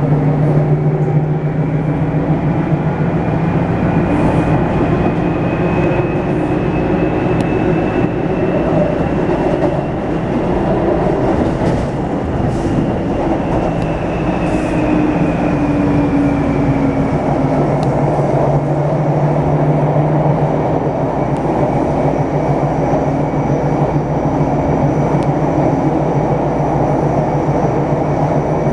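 Taipei Metro C301 train with retrofitted propulsion running, a thin high whine from its inverter rising slowly in pitch and then falling in the second half, over the steady rumble of wheels on rail and a low hum. The whine is the abnormal inverter noise this retrofit is known for.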